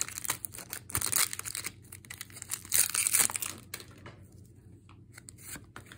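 Foil booster-pack wrapper crinkling and tearing as it is pulled open by hand, in bursts during the first second and again around three seconds in, then fainter rustling as the cards come out.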